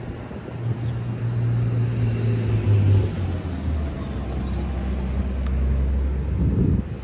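Low engine rumble of a motor vehicle, which drops to a lower pitch about halfway through and cuts off just before the end.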